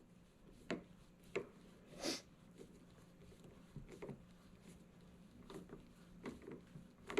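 Faint, scattered small clicks and scrapes of a driver slowly tightening the set screw of a 2021+ Ford Bronco door handle while the handle is held pressed into the door.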